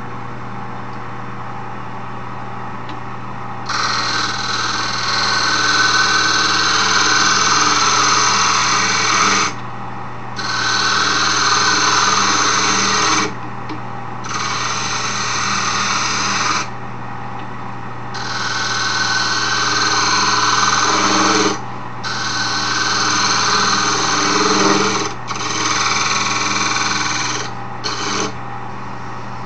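Wood lathe running with a steady hum while a turning tool cuts into the spinning wooden file handle. The cutting comes in about seven passes of a few seconds each, starting a few seconds in, as the end of the handle is shaped round.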